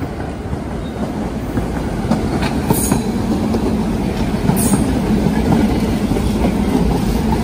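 St. Louis Car Company R44 subway train running along the station platform close by, its wheels rumbling on the rails and getting louder as it comes in. Two brief high squeals come about three and four and a half seconds in, and a steady hum joins the rumble from about halfway through.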